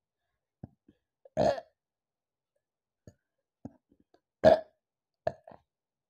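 A woman burping after drinking a sparkling apple soda: two loud burps about a second and a half and four and a half seconds in, the second the louder, then a shorter one right after it, with faint mouth clicks between.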